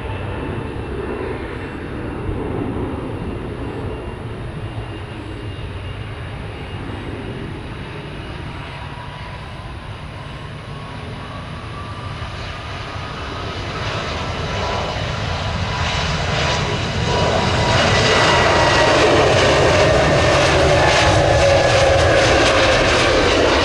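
Airliner engines: a rumble with a thin whine sliding up in pitch, swelling much louder about two-thirds of the way through into a steady, crackling roar.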